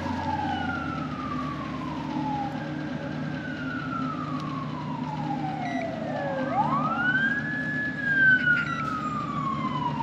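Emergency vehicle siren wailing: slow sweeps that rise quickly and fall away over two to three seconds, again and again, over a steady low hum.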